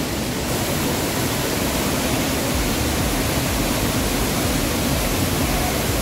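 Loud, steady rush of a waterfall, a dense roar of falling water, with its low rumble growing stronger a little before halfway.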